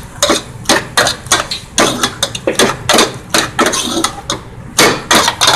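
A large metal spoon knocking and scraping against a stainless steel bowl while egg, bean sprouts and BBQ pork are stirred together, an irregular clatter of about four knocks a second.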